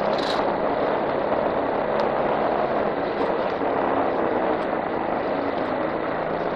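A Honda Navi110 scooter's small single-cylinder engine running as it rolls slowly across a ferry's enclosed vehicle deck, mixed with the deck's steady machinery drone. The sound is loud and even throughout, with a brief click about two seconds in.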